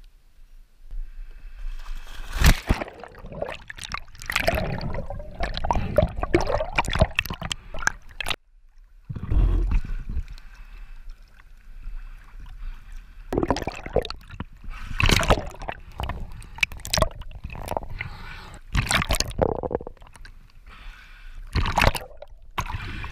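Water sloshing, gurgling and splashing around a camera held at the waterline, in irregular surges as it dips under the surface and comes back up.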